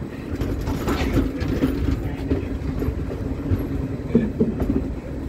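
Indian Railways ICF passenger coach rolling slowly along the track, heard from its open doorway. Its wheels on the rails make a steady rumble, with a few sharp clicks.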